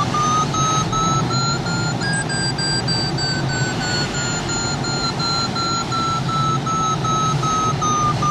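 Sailplane's audio variometer beeping in a quick string, a climb tone whose pitch rises for the first two seconds and then eases slightly: the glider is climbing in a thermal. Airflow rushes over the canopy underneath.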